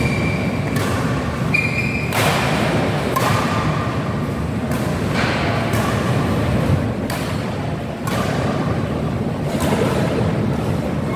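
Badminton doubles rally: rackets striking the shuttlecock every second or two, with short squeaks of shoes on the court floor, over a steady low background rumble.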